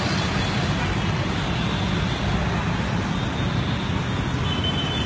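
Steady street traffic noise: an even wash of sound with a low rumble and no distinct events.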